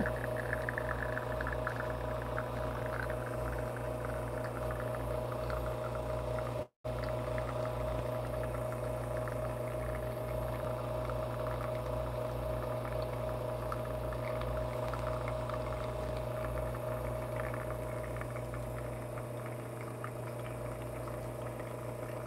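Espresso machine pump humming steadily while an espresso shot extracts, pushing water through the coffee puck. The sound cuts out briefly about seven seconds in.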